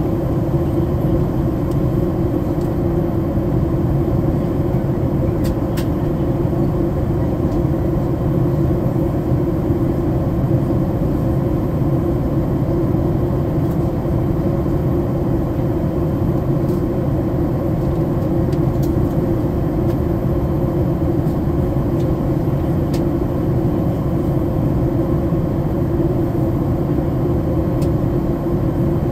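Steady cabin noise of an airliner in flight, heard from a passenger seat: an unbroken, even rush of engine and airflow noise, weighted low, with a faint steady hum.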